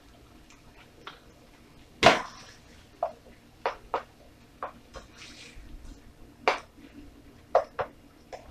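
A spoon scraping and knocking against a stainless steel frying pan while stirring, about ten irregular clinks. The loudest comes about two seconds in and rings briefly.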